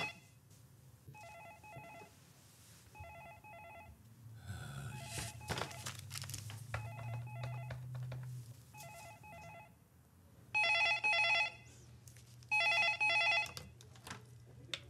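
Office desk telephone ringing in pairs of short electronic rings, faint at first and much louder in the last few seconds. Some soft knocks and rustling come midway.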